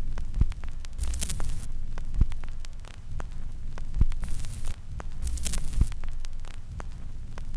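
Old-film soundtrack noise: a steady low hum with crackle and many scattered pops, and three short bursts of hiss about one, four and five seconds in.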